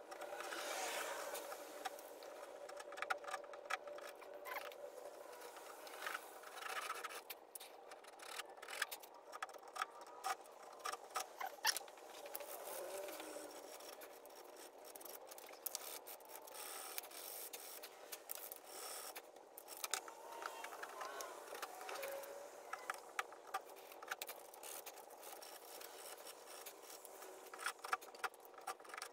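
Japanese pull saw cutting shallow lines into a small piece of walnut: irregular runs of short rasping strokes with pauses between them.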